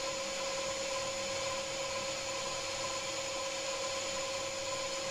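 Small Hercus CNC lathe running with its spindle turning steadily while a boring bar bores out the drilled hole in a brass part to tap-drill size. It makes a steady machine whine with constant tones.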